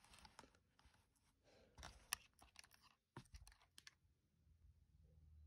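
Faint handling noise of a metal-framed pair of eyeglasses and a small tool: irregular light clicks and rustles, with one sharper tap about two seconds in. It goes still after about four seconds, leaving a low hum.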